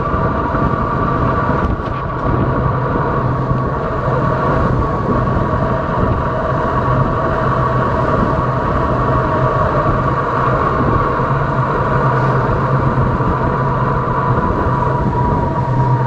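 Steady rush of wind and tyre noise from travelling fast along an asphalt road, with a constant hum in it. The loudness dips briefly about two seconds in.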